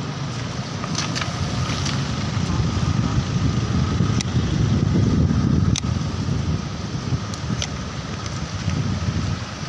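Wind buffeting the microphone of a camera carried on a moving bicycle: a low, rushing rumble that swells in the middle and eases toward the end, with a few sharp clicks scattered through it.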